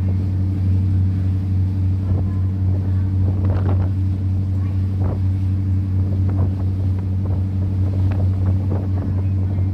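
Tour boat's engine running with a steady low drone, with water splashing briefly now and then and wind on the microphone.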